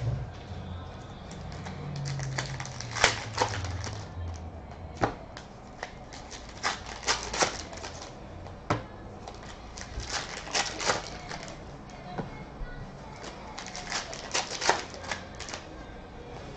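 A stack of Topps Allen & Ginter baseball cards flipped through by hand, card stock giving irregular runs of sharp flicks and snaps.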